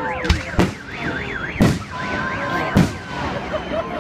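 Four sharp fireworks bangs from a salute, heard over a car alarm wailing rapidly up and down that stops about two seconds in. Thin whistling tones slide up and down between the bangs.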